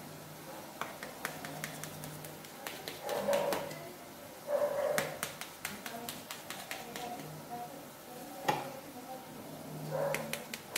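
Knife blade cutting through steamed dhokla and clicking irregularly against the steel plate beneath. A few short muffled vocal sounds, the loudest things here, come in between the clicks.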